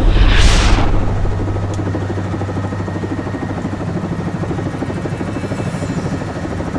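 Helicopter sound effect: a steady rotor chop over an engine drone, with a whooshing pass in the first second.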